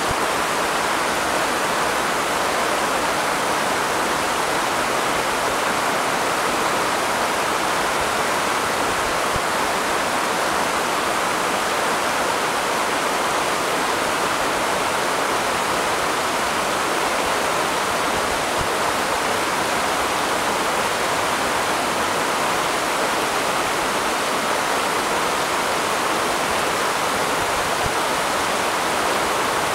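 Rushing water: a steady, unbroken hiss of flowing water that stays at one level throughout.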